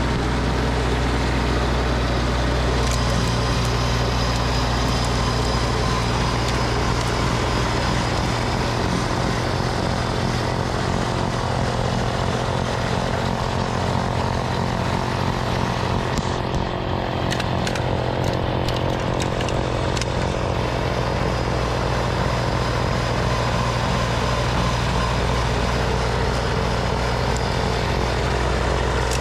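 Snowblower engine running steadily under load, a constant low-pitched drone.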